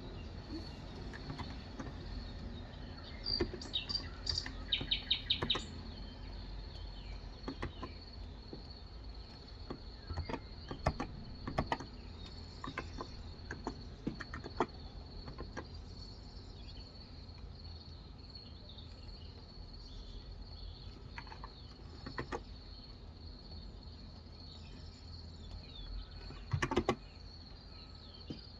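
Occasional keystrokes on a Cox Endeavour electro-capacitive (Topre-style) 35 g keyboard, as scattered single clicks at an unhurried pace. Birds chirp briefly a few seconds in, over a steady high whine.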